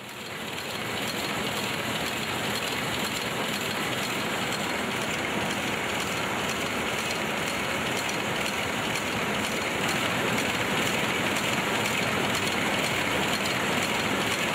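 Soap wrapping and packing machinery running, a steady dense clatter of fine rapid ticks that fades in over the first second and then holds even.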